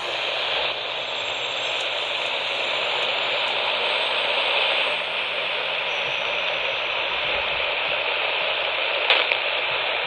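Steady hissing static from a portable radio's AM band, with a brief crackle about nine seconds in.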